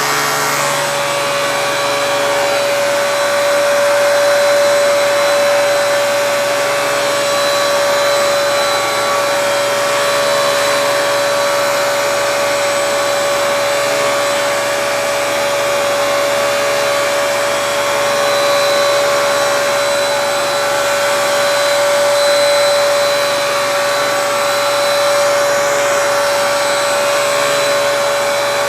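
Vacuum cleaner running steadily, pulling through the hose of a Flowbee vacuum haircutter whose clipper motor is also switched on, while it is used to cut hair. A steady whine holds one pitch the whole time.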